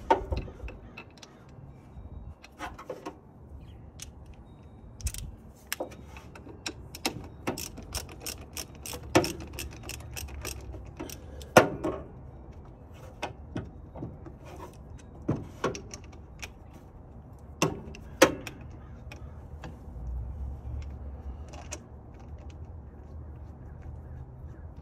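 Ratchet wrench clicking and metal tools and parts clinking against the engine while the supercharger's bolts are being loosened: irregular sharp clicks and clanks, with a few louder knocks.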